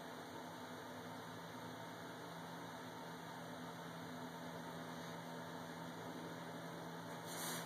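Steady background hiss with a low, even hum, and a brief louder rush of noise near the end. No sound from the hawk stands out.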